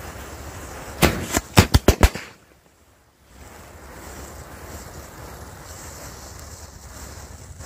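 Firecrackers set off by a burning matchstick chain: about six sharp bangs in quick succession, lasting about a second.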